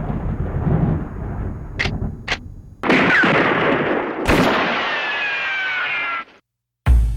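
Rumbling, two short sharp clicks, then two heavy gunshot-like booms with long rolling tails, the second trailing off in falling tones before cutting off abruptly. A drum beat with a heavy kick starts near the end.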